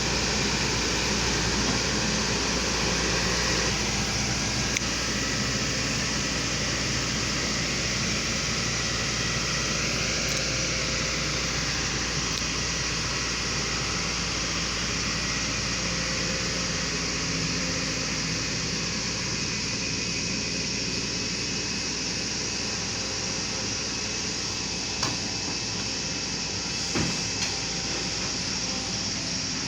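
Volvo excavator's diesel engine running steadily, with two or three sharp knocks in the last few seconds.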